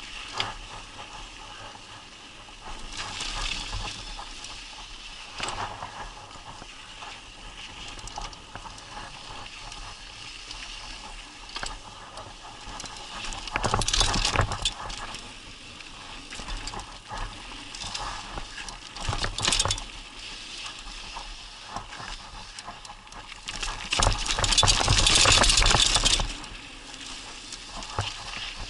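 Mountain bike riding down a dry dirt trail: a steady rumble and rattle of tyres and frame, with wind rushing over the camera's microphone. Several loud surges, the longest lasting about two seconds near the end.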